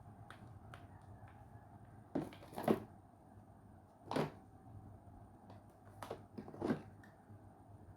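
A handful of short knocks and clacks from objects being handled and set down: two close together about two seconds in, one near the middle and two more near the end.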